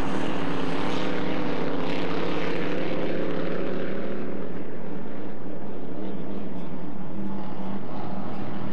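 Flat-bottom racing boats' supercharged inboard engines running flat out, a steady high-revving drone whose pitch sags slightly a few seconds in as a boat passes.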